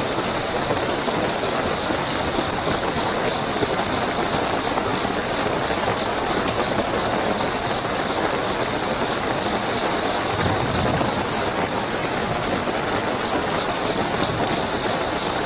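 Steady heavy rainfall with a continuous high trilling of night crickets over it, and a brief low rumble about ten seconds in.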